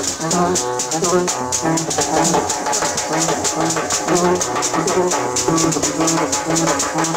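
Haitian street procession band music: shakers and rattles keep a fast, steady beat over drums, a short low horn note repeats over and over, and voices sing along.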